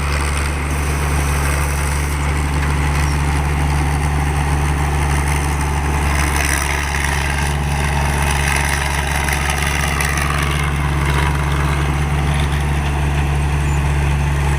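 A 225 HP rice combine harvester running steadily: a constant low engine drone under an even rushing machinery noise.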